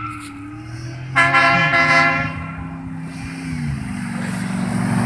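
A vehicle horn sounds once, about a second long, over the low running of vehicle engines. Road and tyre noise from a passing vehicle builds toward the end.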